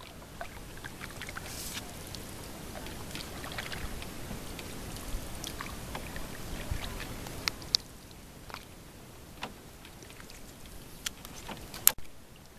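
Canoe being paddled: water swishing and dripping with the paddle strokes, and a few sharp knocks and clicks, the loudest near the end.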